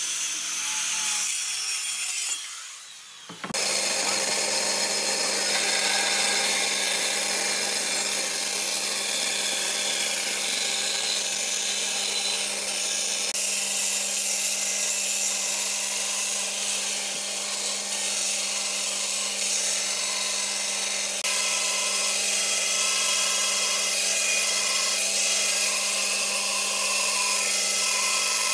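Electric circular saw cutting a wooden board for the first few seconds, then a bandsaw running with a steady hum, its blade sawing a curve through a wooden board.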